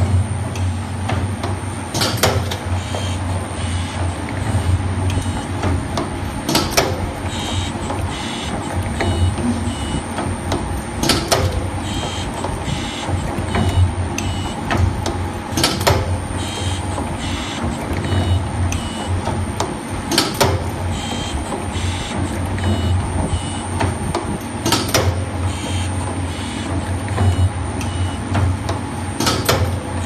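Buckle clip wire forming machine running: a steady motor hum with a rhythmic clatter of its slides, and a loud sharp clack about every four and a half seconds.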